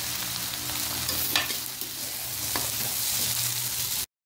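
Sweet zarda rice frying in hot oil and sugar in a metal pot, sizzling steadily while a metal spoon stirs it, with a few sharp scrapes and clicks of the spoon against the pot. The sound cuts off suddenly near the end.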